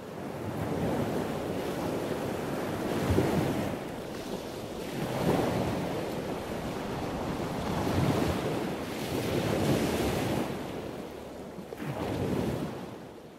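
Ocean surf washing in, a rushing noise that swells and eases every two to three seconds.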